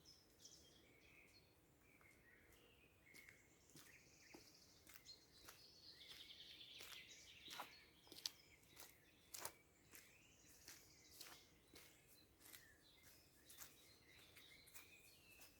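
Faint songbirds singing in a spring forest: scattered chirps and trills, with a longer trilling song in the middle. Short faint clicks come and go throughout.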